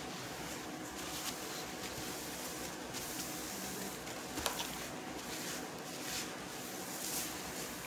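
Soft rustling of a paper napkin being handled and wiped across a table, in a few short patches, over a steady low room hum. There is one sharp click about four and a half seconds in.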